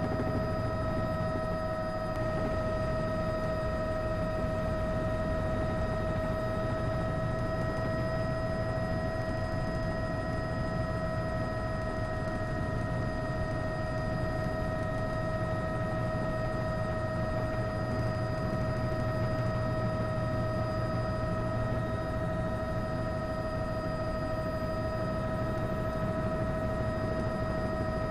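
Steady helicopter engine and gearbox whine, several constant high tones over a low drone, with no change in pitch or level.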